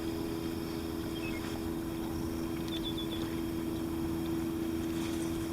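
Boat's outboard motor running at a steady speed, an even hum over the rush of the hull through the water.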